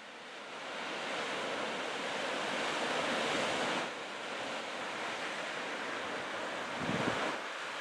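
Heavy sea surf breaking and washing over coastal rocks below a cliff, a dense steady rush that swells over the first few seconds and eases slightly just before four seconds in. Wind buffets the microphone with a low rumble near the end.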